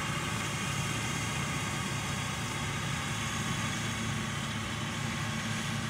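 An AGCO Challenger MT775E tracked tractor's engine running steadily under load as it pulls a Horsch Joker high-speed disc harrow through the soil, a low engine hum under the even noise of the discs working the ground.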